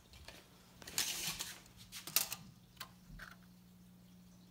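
Handling noise: a short rustle about a second in, then a few light clicks and taps, over a faint steady hum.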